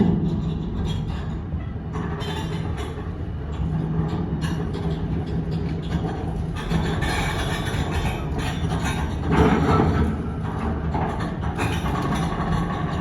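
Warship's anchor windlass and chain running: a steady machine hum under irregular metallic clattering, loudest about nine to ten seconds in.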